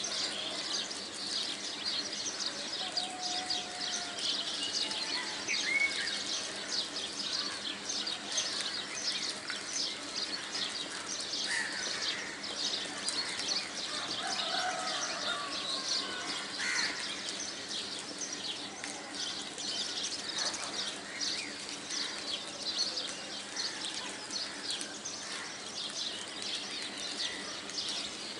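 Many birds chirping without a break, a dense chatter of short high chirps with a few longer calls among them, over a faint steady low hum.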